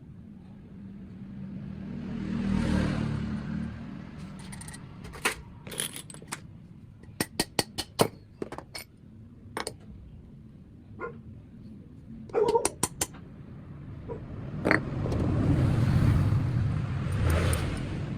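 Workshop handling of tools and metal parts during a lathe attachment repair: a run of sharp clicks and knocks through the middle, between two swells of low rumble that rise and fall over a few seconds each.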